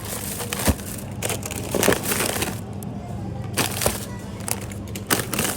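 Grocery packaging being handled: plastic crinkling and rustling, with a few sharp clicks and knocks, over background music.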